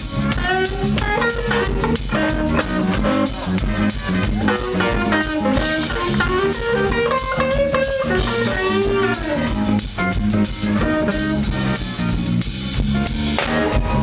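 Live electric blues band: a hollow-body electric guitar plays a lead line whose notes bend up and down over a drum kit and bass.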